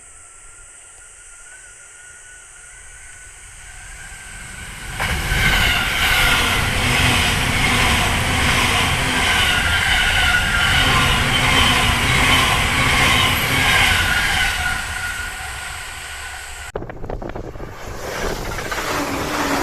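Two electric trains, an E235 series 1000 Yokosuka–Sobu rapid and an E259 series Narita Express, passing each other at speed. The rumble of wheels on rails builds about four seconds in, stays loud for some ten seconds, then drops off sharply near the end.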